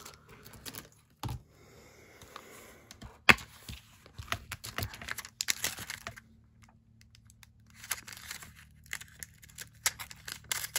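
Clear photopolymer stamps and their plastic sleeve being handled: crinkling plastic and stamps peeled off their backing sheet, with scattered sharp clicks and taps, the loudest about three seconds in.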